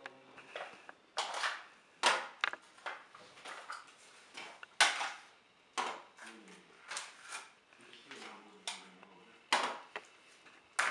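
Groceries handled and put down on a wooden table: a plastic tub, a bunch of bananas and a carton knocked, rustled and slid, giving a dozen or so short clacks and scrapes at an uneven pace.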